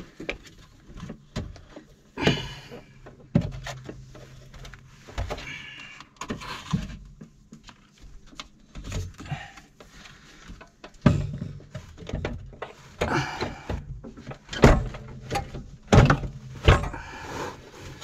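Irregular knocks, thumps and scrapes of a small electric water heater's plastic casing being handled and lifted onto its wall mounting, with the loudest knocks in the last few seconds.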